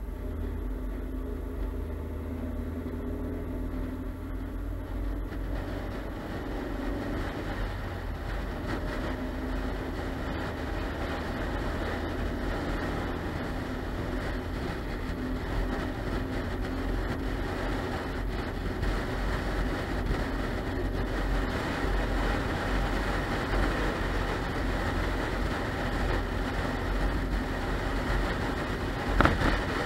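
Car driving along the road: steady engine hum with tyre and wind noise, the noise slowly growing louder as it speeds up. A single short knock near the end.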